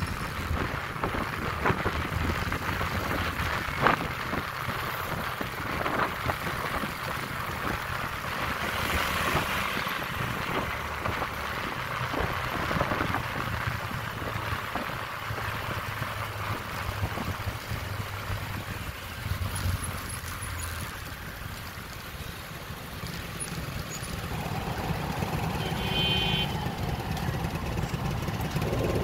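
Honda Click 125i scooter's single-cylinder engine running steadily on the move, with wind and road noise over the microphone.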